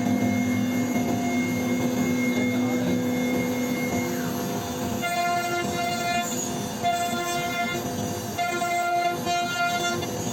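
CNC router carving wood: a steady spindle whine over the noise of the bit cutting, with the machine's motor tones shifting and chopping into short, fast on-off runs as the cutting head moves.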